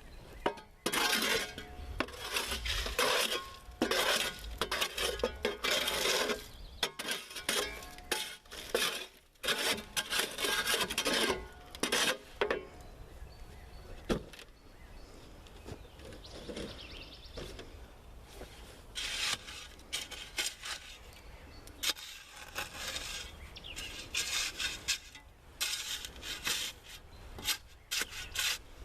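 A shovel scraping and scooping wet concrete out of a wheelbarrow in repeated, irregular strokes, with a quieter stretch in the middle.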